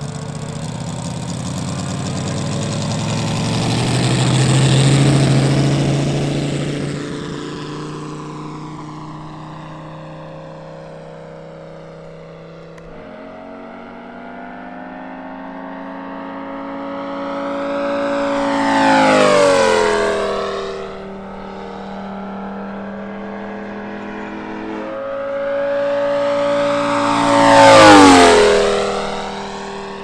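Moki S250 five-cylinder four-stroke radial engine of a large RC scale Lavochkin La-7 warbird running at high power. It swells as the plane accelerates past about five seconds in, then makes two fly-bys, each growing louder and dropping in pitch as it goes by, the loudest near the end.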